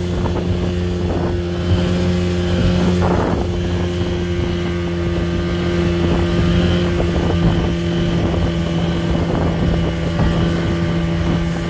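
Speedboat engine running steadily at speed, heard from aboard, with rushing water and wind on the microphone.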